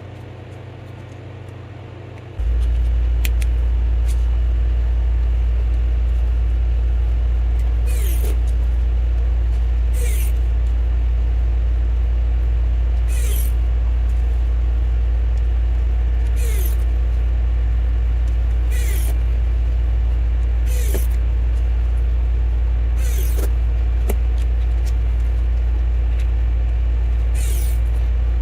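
A loud steady low hum, with short whirring bursts every two to three seconds from a small electric screwdriver driving the phone's screws back in.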